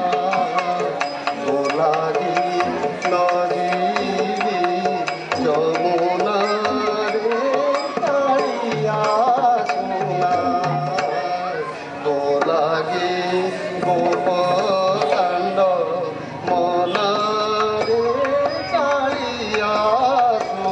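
Odissi dance music played for the performance: a wavering melodic line, likely a singer, over frequent hand-drum strokes, continuous throughout.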